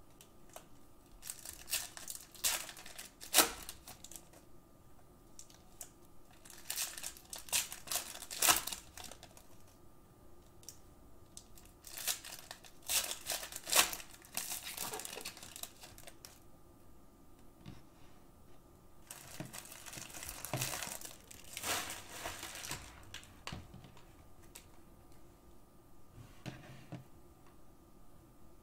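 Cellophane wrappers of Panini Prizm basketball card cello packs crinkling and tearing as they are opened, in irregular bursts of rustling with short pauses between.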